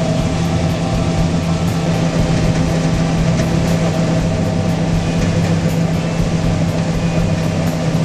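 John Deere combine harvester running steadily while harvesting corn, heard from inside the cab: a constant machine drone with a strong steady hum under it.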